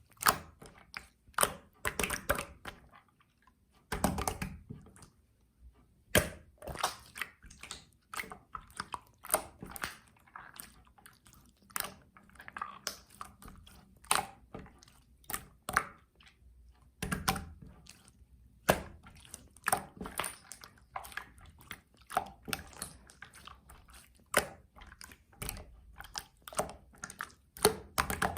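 Clear slime being squeezed and pressed by hand, giving an irregular run of sharp sticky clicks and small pops, often several in quick succession.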